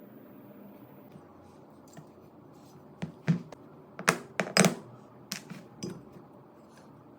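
A quick run of sharp clicks and knocks from hard parts being handled, about ten strikes over three seconds starting about three seconds in, loudest in the middle.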